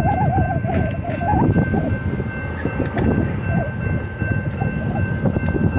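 Railroad crossing warning bell sounding steadily as the crossing gates lift, over a loud low rumble.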